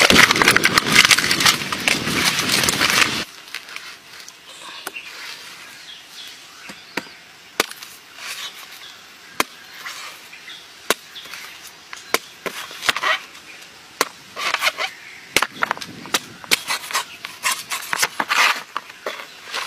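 A large knife chopping into the husk of a young green coconut: scattered sharp, irregular chops that come faster near the end. A loud, rough noise fills roughly the first three seconds, then cuts off.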